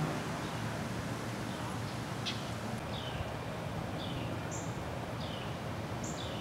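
A bird chirping: short falling chirps repeated every second or so, beginning about two seconds in, over steady outdoor background noise.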